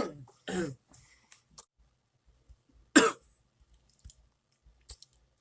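A sick young man coughing: a short throat-clearing sound about half a second in, then one sharp cough about three seconds in.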